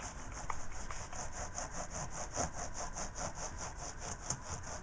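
Small brush scrubbing quickly back and forth across a laptop keyboard, sweeping cat hair out from between the keys: an even rhythm of about six strokes a second.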